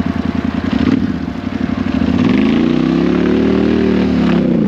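ATV engine running at a low, pulsing idle, then revving up about two seconds in, holding the higher speed briefly and easing back down near the end.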